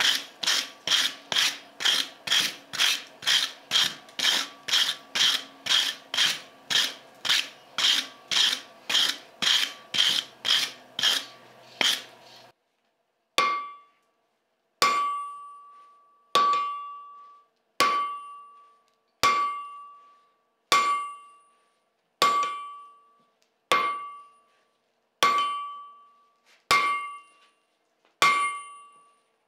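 Blacksmith's hand hammer forging hot steel on an anvil: a fast, even run of blows, a little over two a second, for about twelve seconds. After a short pause come slower single blows about every second and a half, each leaving a clear ringing tone from the anvil.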